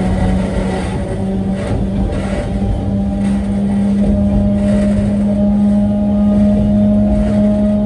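Hokusei Line narrow-gauge electric train running, heard from inside the front cab: a steady motor hum with a higher tone rising slowly in the second half, over a rumble of wheels on the track with a few faint knocks.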